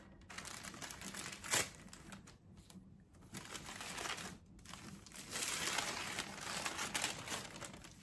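Tissue paper wrapping crinkling as it is pulled open by hand. There is one sharp crackle about one and a half seconds in, and from about halfway on the crinkling is dense and continuous.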